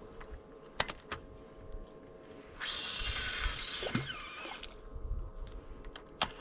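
Fishing rod and reel being handled: two sharp clicks, one about a second in and one near the end, and in between a hissing whir of about two seconds that falls in pitch. A steady low hum runs underneath.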